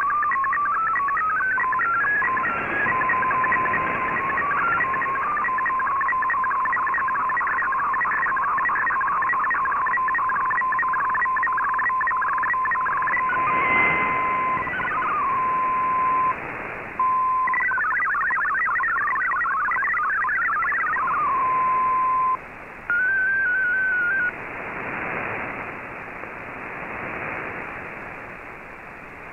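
MFSK digital data from the Shortwave Radiogram broadcast, heard as shortwave receiver audio: a steady tone with fast warbling, chirping data tones above it, from the end of an MFSK picture transmission giving way to MFSK text and an RSID identifier. The tones drop out briefly twice. A short gliding tone follows, and for the last few seconds only faint, fading band noise remains.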